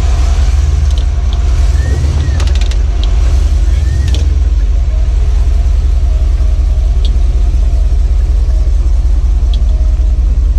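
Jeep Wrangler moving over a trail, picked up from beneath the vehicle: a steady heavy low rumble from the running engine and drivetrain, with a few short sharp clicks.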